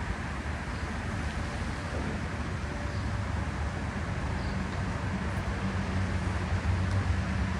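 Steady rumble of road traffic, with an engine's low hum growing louder through the second half.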